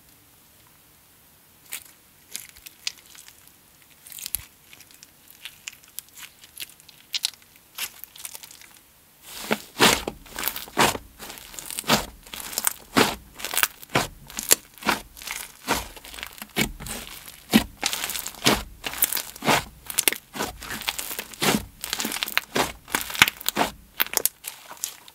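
Butter slime made with clay over slushy beads, squished and stretched by hand, giving little crunches and bubble pops. A few faint crackles at first, then dense, irregular crunching and popping from about nine seconds in.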